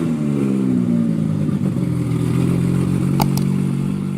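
Car engine dropping back from a rev to a steady idle, with two quick clicks about three seconds in.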